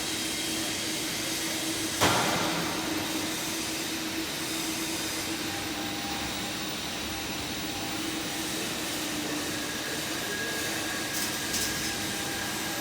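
Steady machinery noise with a constant low hum running under it, and one sharp metallic knock about two seconds in.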